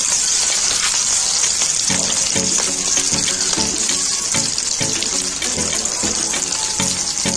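Potato spring rolls shallow-frying in hot oil in a karahi: a steady sizzle with fine crackling pops. Background music plays alongside.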